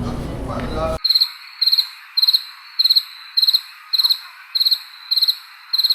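Crickets chirping: short trilled chirps repeated evenly, about one and a half a second. The chirping cuts in suddenly about a second in, with all the low background sound dropping out at once.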